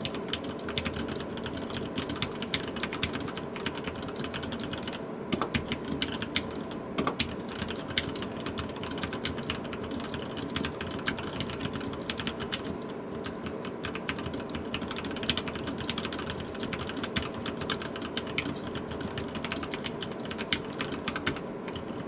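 Fast continuous typing, about 94 words a minute, on a mechanical keyboard with lubed 78g Gateron Black linear switches in an aluminum plate. It is a steady stream of key clacks with a few louder strikes scattered through.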